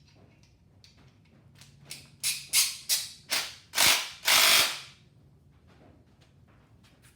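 Ratchet wrench being worked in about six quick, loud strokes, each a rasp of clicks, the last ones longer, after a couple of seconds of faint tool clicks.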